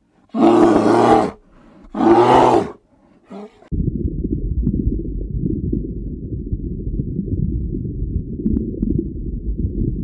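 Two loud, hoarse calls from a giant panda, each about a second long and a second apart, then a steady low rumble from about four seconds in.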